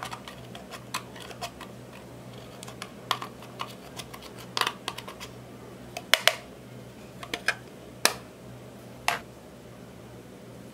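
Irregular sharp clicks and taps of a metal tool scraping and prying pressed eyeshadow out of a plastic palette, mixed with the plastic palette case and lid clicking as they are handled. The taps stop about nine seconds in, leaving a low steady hum.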